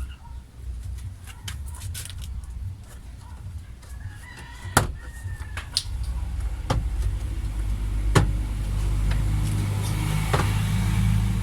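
Sharp clicks and knocks of plastic trim and tools as a car door's inner panel is worked loose, over a low steady rumble. A rooster crows in the background about halfway through.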